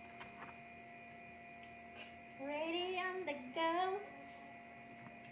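Steady electrical hum with several fixed tones and a few faint light taps. About two and a half seconds in, a voice sings in two drawn-out phrases lasting about a second and a half.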